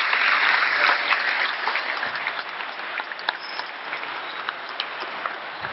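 Audience applauding, densest at the start and thinning out toward the end into separate claps.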